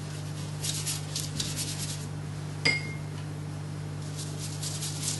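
Soft strokes of a watercolour brush on paper, then a single light clink with a brief ring about two and a half seconds in, over a steady low hum.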